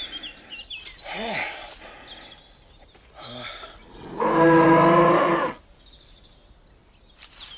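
A bear's call, long, low and moo-like, lasting about a second and a half midway through. Earlier come a few short grunts that rise and fall in pitch.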